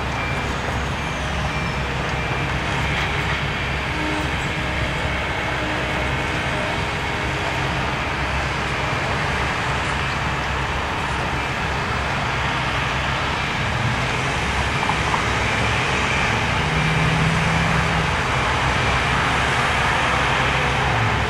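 Yanmar SV100 mini excavator's diesel engine running as it digs, mixed with passing road traffic: a steady wash of noise with a low engine hum.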